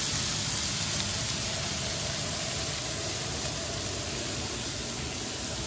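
Head-on shrimp sizzling steadily as they sear on a smoking-hot cast-iron plancha, a continuous frying hiss.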